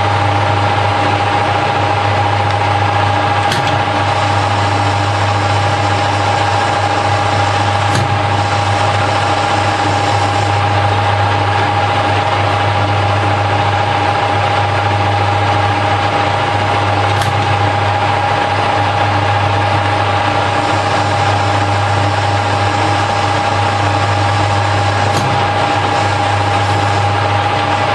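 Harrison L5 metal lathe running steadily while a turning pass is taken on bar stock: an even mechanical whine over a low motor hum, with a few faint ticks.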